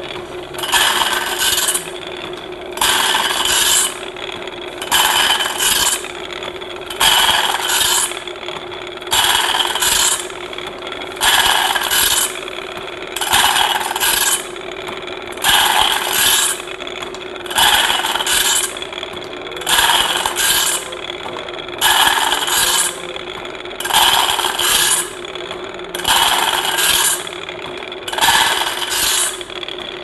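Automatic band saw blade sharpener's abrasive grinding wheel grinding the steel teeth of a sawmill band saw blade, one tooth at a time. A harsh grinding pass lasts about a second and comes again every two seconds or so, over a steady hum.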